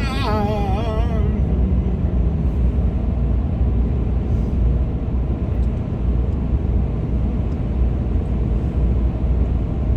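A moving 4x4 on mud-grip tyres, heard as a steady low rumble of road and engine noise.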